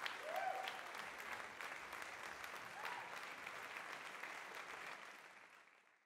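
Faint applause, a dense patter of clapping, that fades out about five seconds in.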